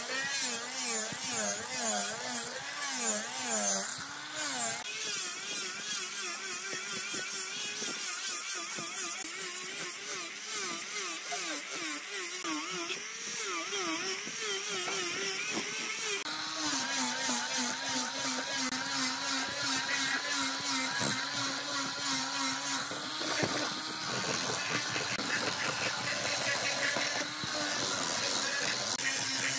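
Angle grinder fitted with a sanding disc, running as it sands a wooden rod; its motor pitch wavers up and down as it is pressed on and eased off, then settles into a steadier tone a little over halfway through.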